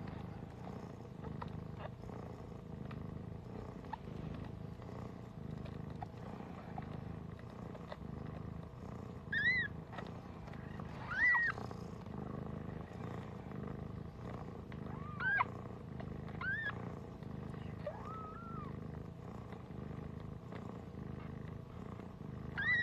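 Siberian mother cat purring steadily while her newborn kittens nurse, with about six short, high squeaking mews from the kittens starting about nine seconds in.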